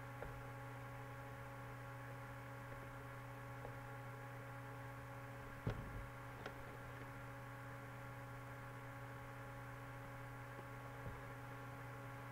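Steady electrical mains hum, a low buzz made of several steady tones. About halfway through come two soft clicks, a little under a second apart.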